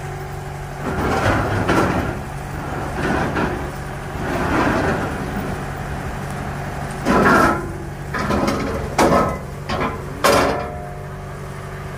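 Aluminium loading ramps scraping and clattering as they are dragged and set against a truck bed, with several loud ringing metal clangs in the second half as they drop into place. A steady engine hum runs underneath.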